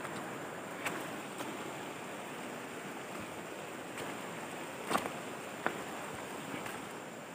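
Shallow river rushing steadily over stones, with a few sharp clicks, about a second in and twice around five seconds in.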